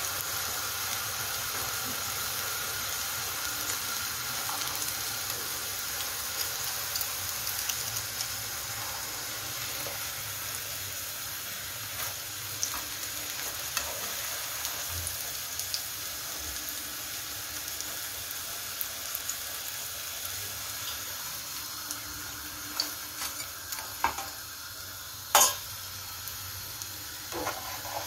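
Nettle fritters sizzling steadily as they shallow-fry in hot oil, with a few sharp knocks near the end.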